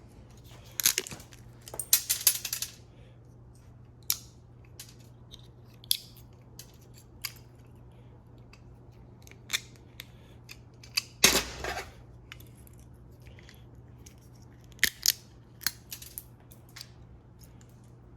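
Scrap plug-in power adapters and small electrical parts being handled and sorted: scattered clicks and short clatters of hard plastic and metal, with louder clattering bursts about a second in, around two seconds in and about eleven seconds in, over a steady low hum.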